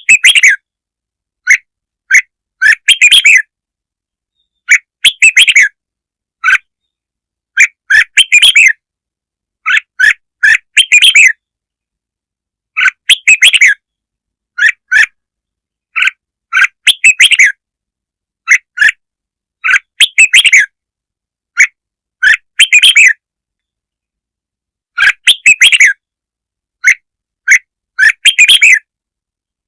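Red-whiskered bulbul song: short, loud chirpy phrases repeated every two seconds or so, with silence between them. It is a lure call meant to provoke other bulbuls.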